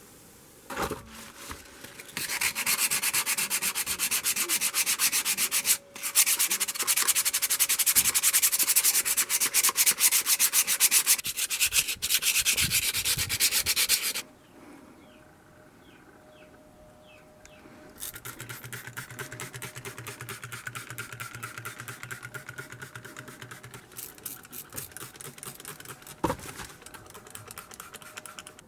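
Abrasive sanding or scrubbing on the surface of a cast-iron kettlebell, a fast scratchy rasp that takes rust and old finish off the metal. It runs loudly for about twelve seconds, stops, then resumes more quietly for a further eight seconds or so.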